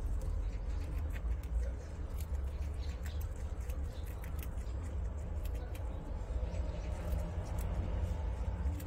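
Prairie dog chewing and tearing fresh grass blades: irregular small crisp crunching clicks, over a steady low hum.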